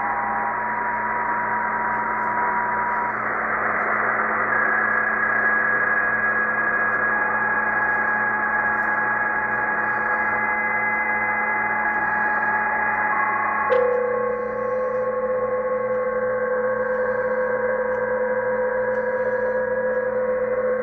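Several PSK31 digital-mode signals from the 20-metre amateur band, heard through a Tecsun PL-990x shortwave receiver in upper sideband as steady tones at different pitches over band hiss. The tones come and go independently. After a click about 14 seconds in, a stronger low tone sets in.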